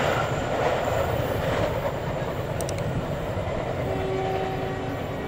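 Passenger train running away on the rails, its steady rolling noise slowly fading as the last coach recedes.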